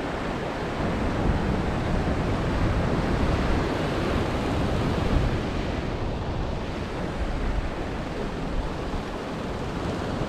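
Ocean surf washing and breaking against a rocky lava shoreline, a steady rushing wash, with wind buffeting the microphone.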